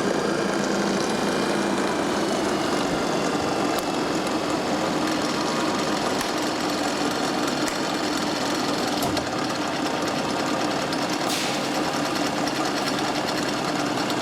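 Generator being driven on an electrical test bench, running steadily at speed under load with an even mechanical whir.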